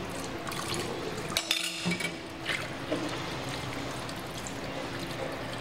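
Tap water running and splashing into a stainless steel sink as a stainless steel bowl is rinsed and emptied, with a few brief clinks about a second and a half in.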